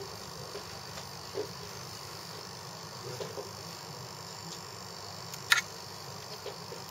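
Steady high-pitched chirring of crickets in the background, with a few soft handling knocks and one sharp click about five and a half seconds in.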